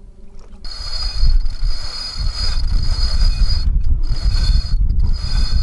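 Sailboat rigging at work as a sail is hoisted: a line running through pulley blocks with a steady high squeal, over heavy wind rumble on the microphone. It starts suddenly about half a second in, after the tail of some music, and drops out briefly twice.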